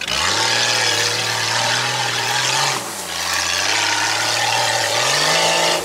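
Prepared off-road vehicle's engine revving hard under load, with a dense rush of noise over it. The revs climb, drop briefly about three seconds in, then climb again near the end.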